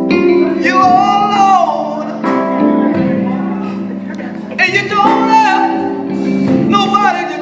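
Slow gospel song performed live: male voices singing a gliding melody over sustained keyboard chords in a large hall.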